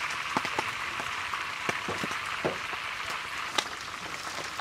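Stingray pieces frying in a large metal pan, a steady sizzle with scattered sharp pops and crackles, the loudest pop a little after three and a half seconds in.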